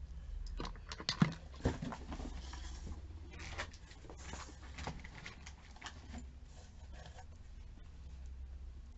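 Hands handling cardboard packaging and small perfume sample vials: scattered clicks, taps and short rustles, the sharpest about a second in, thinning out after about seven seconds, over a steady low hum.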